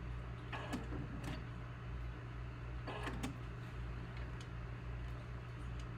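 Electric sewing machine running steadily with a low motor hum while it sews a basting stitch through jersey fabric, with two brief louder sounds, about half a second in and around three seconds in.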